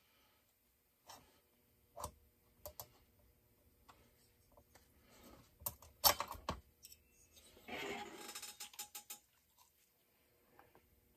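Scattered clicks and clinks of hand tools and metal parts of a Farmertec MS660 chainsaw being handled during its teardown. The loudest is a sharp clatter about six seconds in, followed by a scraping rattle lasting over a second around eight seconds in.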